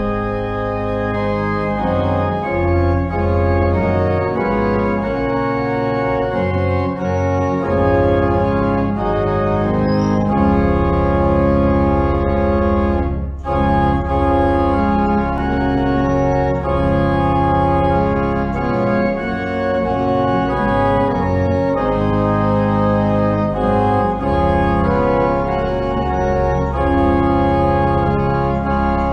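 Organ music: sustained, held chords over a steady bass, changing chord by chord, with a momentary break about halfway through.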